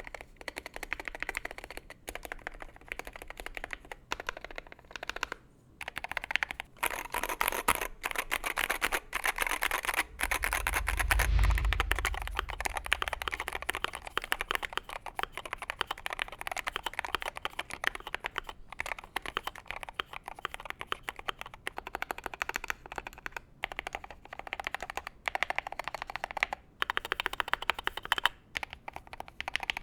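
Continuous typing on a Wooting 60HE mechanical keyboard mounted in a Tofu60 walnut wood O-ring mount case, a dense stream of keystroke clicks and clacks with a few short pauses. There is a brief low rumble about eleven seconds in.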